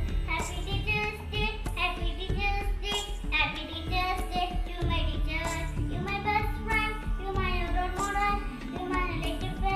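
A song: a voice singing a melody over instrumental backing with a regular percussion beat.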